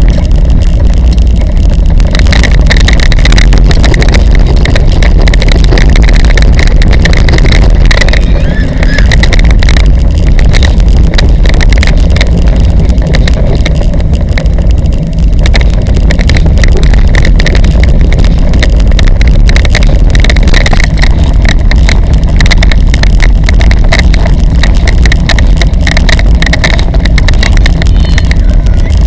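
Steady, very loud wind buffeting on the microphone with road rumble from a bicycle towing a child trailer along a paved street.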